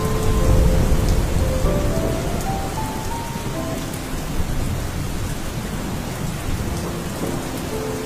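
Steady rain falling, with a low rumble of thunder loudest in the first two seconds. A few soft music notes sound over it in the first half and again near the end.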